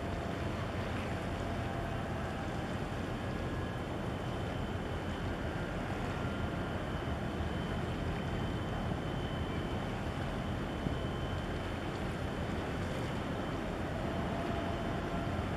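Wind on the microphone: a steady low rumbling noise with a few faint thin tones coming and going over it.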